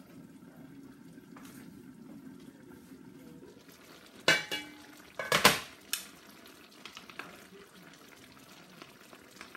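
A steel wok lid is lifted off a covered wok with a few loud clanks about four to six seconds in, after a steady low hum. A wooden spoon then scrapes and taps lightly in the wok as the steaming pinakbet vegetables are stirred.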